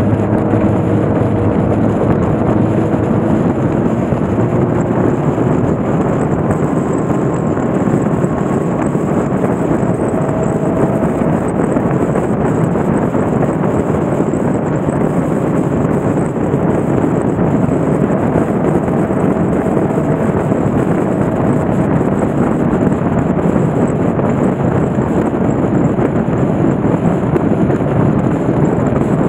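Motorcycle under way, recorded on the bike: a steady rush of wind over the microphone with the engine's drone underneath, its pitch climbing slightly in the first few seconds.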